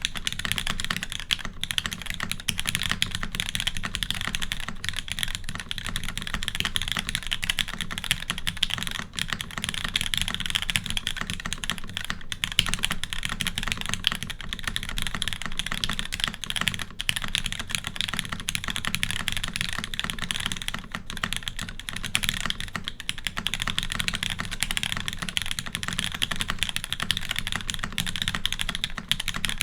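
Fast, continuous typing on a custom mechanical keyboard with lubed Cherry MX Black linear switches in an aluminium plate and GMK keycaps: a dense, steady stream of key clacks with no pauses.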